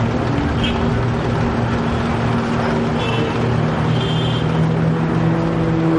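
Propeller engine of an aerobatic display plane droning steadily, its pitch shifting a few times as it manoeuvres.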